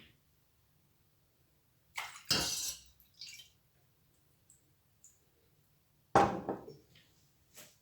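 Kitchenware knocking and clinking in a few separate sharp sounds: a knock and a brief rattle about two seconds in, and the loudest knock about six seconds in, with near silence between them.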